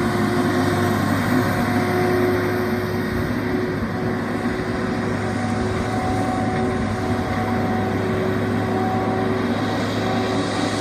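Heavy machine's engine running steadily, a constant drone with a steady whine on top.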